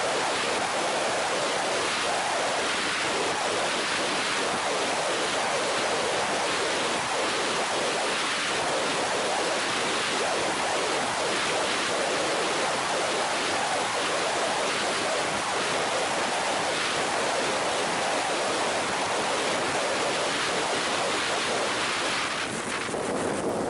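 Steady rush of wind over a motorcycle-mounted camera's microphone at a held top speed of about 145 km/h. It is an even roar that masks the engine. The roar eases slightly near the end.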